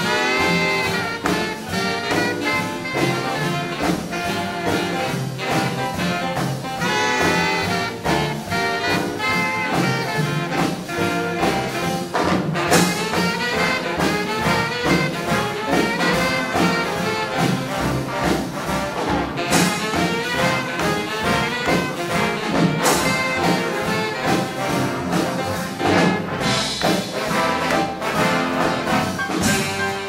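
Live big band playing hot swing-era jazz, with trumpets and trombones over a steady dance beat.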